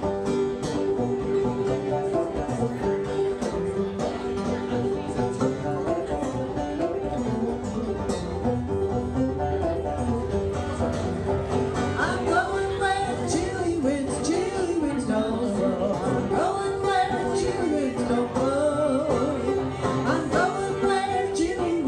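A banjo and a cello banjo playing a tune together, plucked. A woman's singing voice comes in about halfway through.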